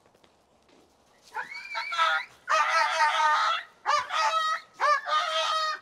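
A leash-reactive dog barking frantically at another dog: a rapid string of high-pitched barks starting about a second and a half in, some drawn out, a reaction called very reactive.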